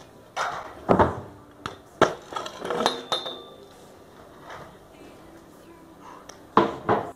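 Stunt scooter clattering as the rider crashes: the wheels hit a wooden kicker ramp and the metal scooter hits the asphalt in a string of sharp knocks and clanks over the first three seconds, then two more loud knocks near the end.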